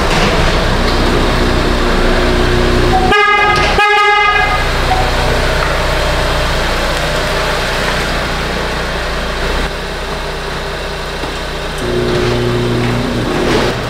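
Ford Escape with the 2.0 engine running as it drives slowly out of a garage bay, with a car horn tooting twice, short and close together, about three seconds in.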